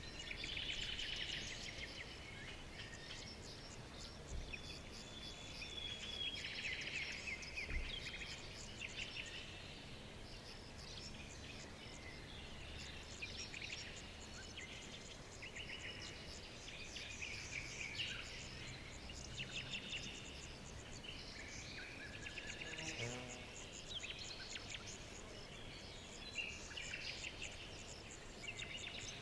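Forest birds singing, with several songs overlapping: many chirps and fast trills one after another, over a faint steady background hiss.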